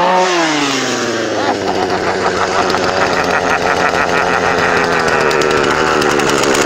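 Chainsaw engine running steadily at low speed, dropping in pitch during the first second as it comes off a rev and then holding with a fast, even firing pulse.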